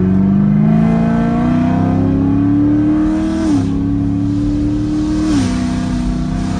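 Straight-piped C7 Corvette Grand Sport's 6.2-litre V8 accelerating hard. Its pitch climbs steadily, then drops sharply at an upshift about three and a half seconds in and again at a second upshift about five seconds in.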